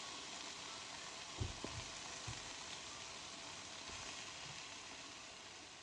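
Pieces of boiled chicken sizzling in hot oil in a sauté pan, a steady frying hiss, with a few soft knocks about a second and a half in and again near the end.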